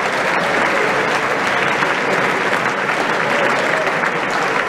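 Large theatre audience applauding at a curtain call: dense, continuous clapping that holds steady in level.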